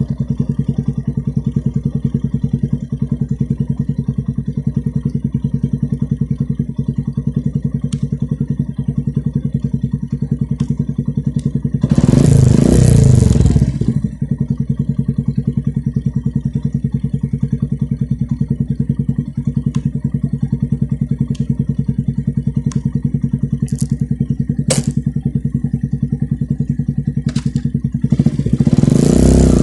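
Yamaha YTX125 single-cylinder four-stroke engine idling steadily through an Akrapovic muffler with its silencer insert removed. The throttle is blipped about twelve seconds in, loud for about two seconds, and the engine is revved again near the end.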